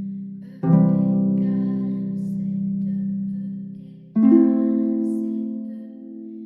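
Background music: slow, sustained chords, with a new chord struck about half a second in and again about four seconds in.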